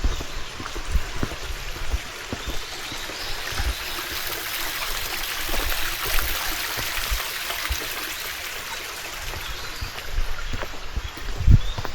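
Small stream or water channel running and trickling, a steady rushing that swells in the middle. Scattered low thuds run under it, with a heavier thud near the end.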